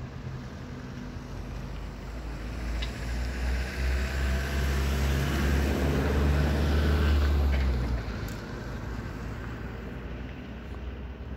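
A motor vehicle's engine rumbling close by, growing louder for a few seconds and then dropping off sharply about eight seconds in.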